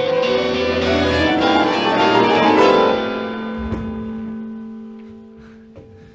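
Experimental live music: electric guitar through live electronics, a dense mass of sustained tones that swells for about three seconds, then thins to a few held low notes and fades away.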